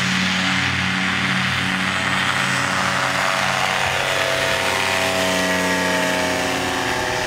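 Engine and pusher propeller of a weight-shift ultralight trike running steadily at high power through its takeoff run and lift-off, passing close by. The pitch bends slightly in the second half.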